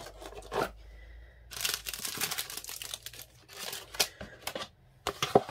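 Clear plastic packaging crinkling and rustling as items are gathered and moved aside, in several short spells, with a few sharp clicks or knocks, the loudest near the end.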